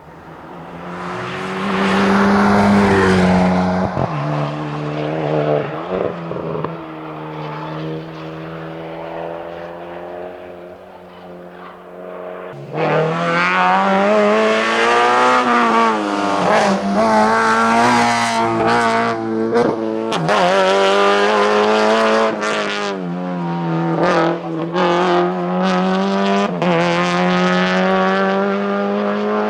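Rally car engines at high revs on a tarmac stage. First a Hyundai i20 N3 comes closer, its engine note rising and falling with throttle and gear changes. About twelve seconds in it switches abruptly to a Subaru BRZ's flat-four, louder, held hard at high revs with dips in pitch at each lift and shift.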